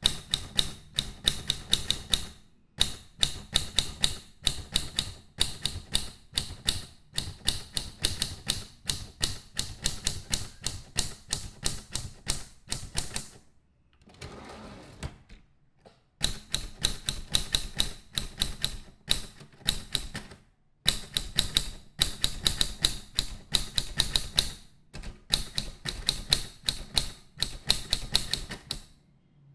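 Typewriter keys struck in quick runs, several strikes a second, with short breaks between runs. About halfway through, the strikes stop for a couple of seconds and a quieter, even noise takes their place.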